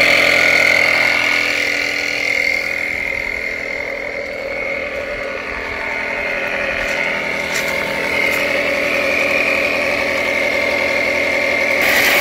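Portable jump starter's built-in 120 psi air compressor running steadily, building pressure toward a 12 psi setting to feed a camp shower. Near the end, water starts spraying from the shower head.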